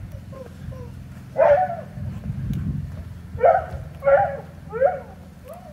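A dog barking in a series of short, high-pitched barks, a few faint ones first, then five louder ones spaced about a second apart from about a second and a half in.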